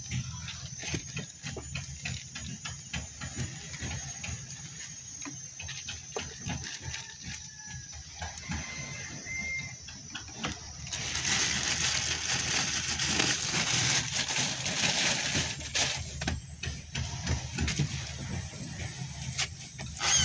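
A clear plastic bag crinkling and rustling as it is handled and filled, with scattered small clicks and a louder spell of crinkling from about eleven to sixteen seconds in.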